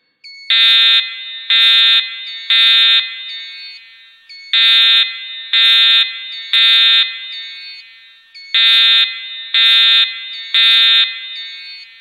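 Building fire alarm sounding the temporal-3 evacuation pattern: three loud half-second horn blasts, a pause, then the three blasts again, three times over. Each blast echoes briefly in the building.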